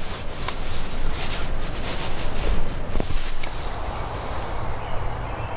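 Wind buffeting the microphone in a low rumble, with brief rustling and scuffing in dry leaves.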